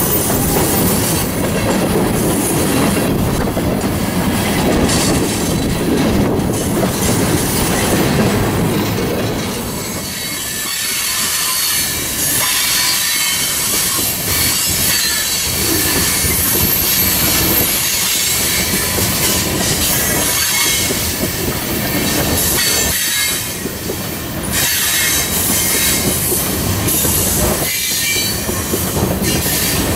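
Canadian Pacific freight train rolling past: steel wheels running on the rails, with some wheel squeal and clacking over rail joints. The low rumble is heavier for about the first ten seconds, then lighter.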